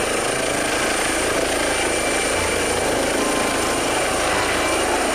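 Helicopter sound: a steady, dense whir of rotor and engine with a thin high whine over it.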